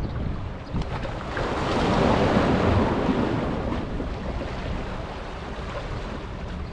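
Wind rushing over the microphone with a wash of sea water, swelling to a louder rush about a second and a half in and easing off after a few seconds into a steady rush.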